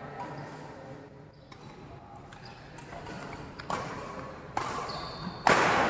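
Badminton rally in a sports hall: sharp racket hits on the shuttlecock about a second apart in the second half, with brief high squeaks of court shoes, the loudest hit near the end.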